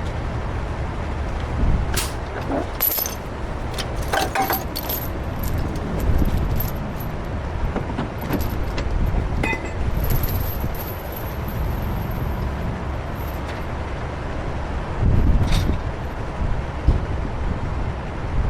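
Heavy truck's diesel engine running steadily with a low rumble, with scattered metallic clinks and knocks, the loudest about 15 seconds in.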